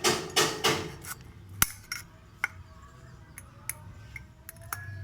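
Small sharp metal clicks and clinks of circlip pliers working a steel circlip back into its groove, about seven scattered ticks, the loudest about a second and a half in.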